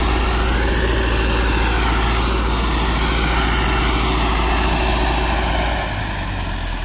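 Massey Ferguson 385 tractor's diesel engine running steadily under load while pulling a cultivator. The sound drops a little about six seconds in.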